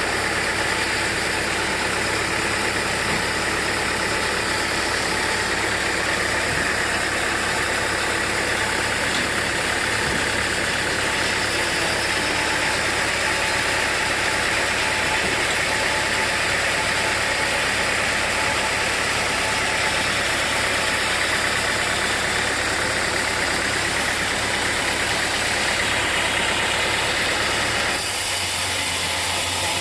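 Sawmill machinery running steadily: a constant engine-like drone under a dense hiss. The sound shifts abruptly near the end.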